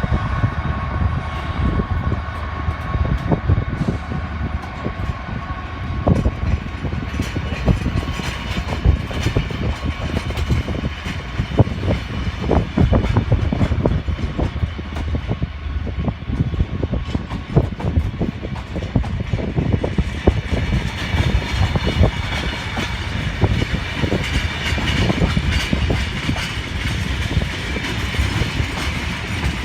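Loaded wagons of a heavy freight train rolling through, a steady low rumble with wheels clattering irregularly over the rail joints. A thin, higher-pitched ringing from wheels on rail joins in about twenty seconds in.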